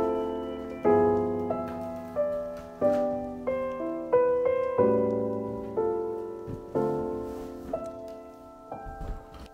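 Background piano music: slow notes and chords struck about once a second, each ringing out and fading before the next.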